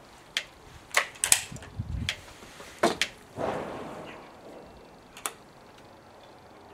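Break-barrel air rifle being handled, broken open and loaded: a run of sharp metallic clicks and knocks, a short rushing noise about three and a half seconds in that fades away, and one last click about five seconds in.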